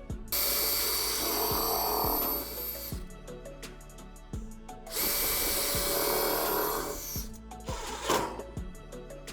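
A handheld electric power tool running in two bursts of about two and a half seconds each, a steady motor whine with cutting noise, and a brief third burst near the end, over background music with a steady beat.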